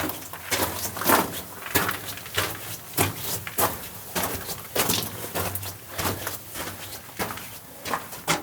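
Footsteps crunching on loose rock and gravel, an irregular walking rhythm of about two steps a second that stops near the end.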